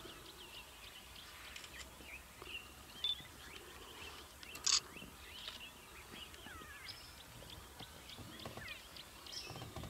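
Wild birds chirping and calling in the bush, many short quick notes, with a sharp click about halfway through.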